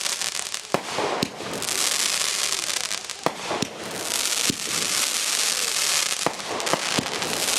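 Consumer fireworks going off: long hissing sprays that swell and fade every couple of seconds, with sharp pops and cracks scattered through them.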